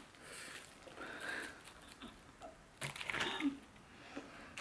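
Close-miked eating sounds: chewing a mouthful of crispy fried chicken, then crackling and rustling about three seconds in as a plastic-gloved hand grabs more chicken in the bowl.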